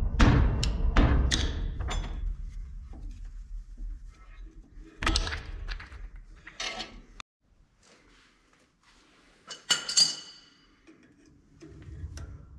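Sharp metal knocks, four in quick succession in the first two seconds, as a screwdriver is worked against a trailer axle hub's grease dust cap to pop it off. A couple of duller thumps follow, then, near the end, a single ringing metal clink.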